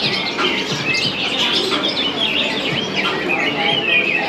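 Many caged birds chirping and calling at once, a dense overlapping chatter of short high chirps and warbles.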